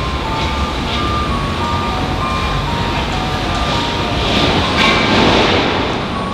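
BMW M5 twin-turbo V8 running, a dense exhaust rumble that swells louder about four to five seconds in. A melody of short high tones sits over it.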